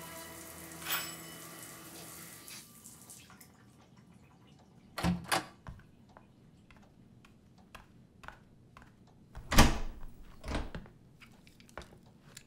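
Music fading out in the first couple of seconds, then a quiet room with scattered clicks and knocks of a door being unlocked and opened, and a few louder thumps, the loudest about ten seconds in.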